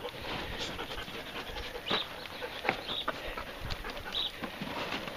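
Belgian Malinois puppy rummaging through a pile of cardboard boxes: irregular rustling, scraping and crinkling of cardboard, with a dog panting.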